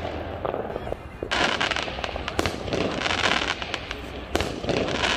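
Aerial fireworks going off: sharp bangs about a second in, again shortly after, and near the end, with dense crackling throughout.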